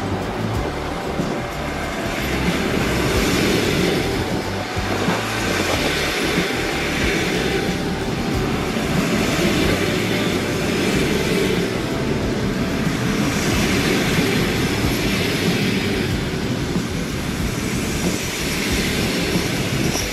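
Passenger train coaches rolling past close by at speed: a continuous rumble and clatter of steel wheels on the rails, swelling and easing every few seconds.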